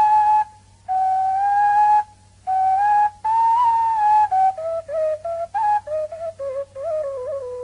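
Background music: a slow melody played on a flute, with held notes and small slides in pitch, pausing briefly twice in the first few seconds.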